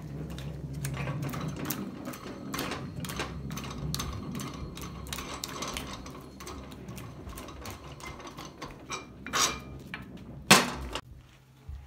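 Irregular metal clicking and rattling as the clamping cone is worked off the threaded spindle of a small manual tire changer, with two louder knocks near the end.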